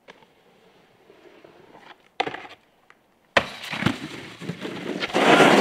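Snowboard on packed snow: a sharp knock about two seconds in, then a sudden loud scraping hiss of the board's base and edges sliding across the snow, growing louder and steadier near the end.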